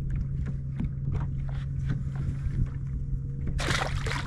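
A steady low hum on a bass boat, with scattered light knocks and a short burst of splashing water about three and a half seconds in.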